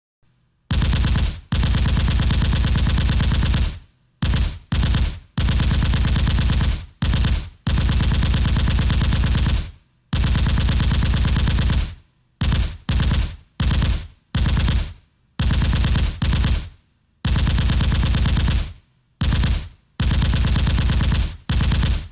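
Machine gun firing in bursts of rapid automatic fire. The bursts vary from short ones of under a second to sustained ones of two to three seconds, with brief pauses between them.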